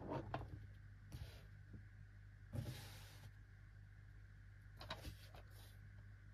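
Faint handling noise of a plastic DVD case being turned in the hands. A few light clicks and knocks come at the start, then three brief soft rustles of fingers sliding over the case.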